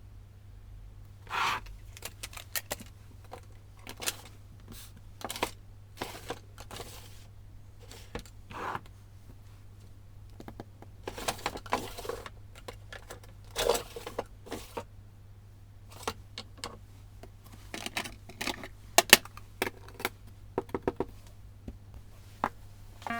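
Stationery being handled on a desk: irregular clicks, taps and short rustles of paper and small plastic items, sped up to double speed, over a low steady hum.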